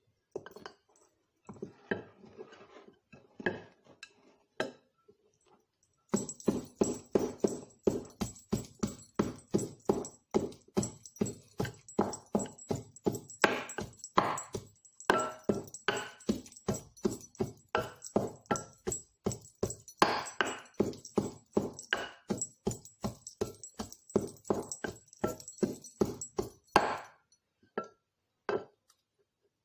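Wooden pestle pounding in a wooden mortar: a steady run of hollow knocks at about two to three strikes a second, lasting some twenty seconds. Before it come a few seconds of soft, scattered handling sounds as something small is peeled by hand.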